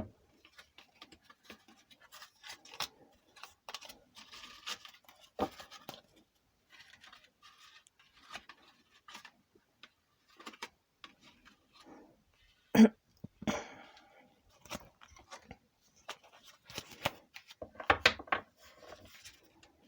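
Lenormand cards being handled: soft scratching, rustling and clicking as the deck is shuffled and cards are drawn and laid on a table, with a sharper tap about thirteen seconds in.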